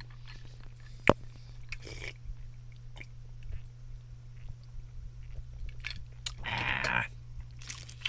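Close-up mouth sounds of a person chewing and eating spaghetti, with scattered small clicks, one sharp click about a second in and a louder noisy rush near the end, over a steady low hum.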